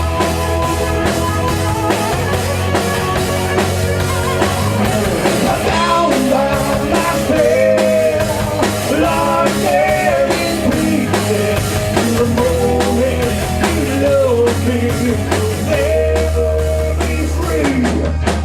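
Live rock band playing a passage without lyrics: drum kit, bass and electric guitar, with a lead melody bending up and down in pitch through the middle.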